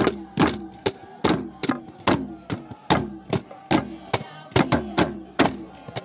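Drums beaten in a steady, fast dance rhythm, about three strikes a second, each beat ringing briefly and falling in pitch.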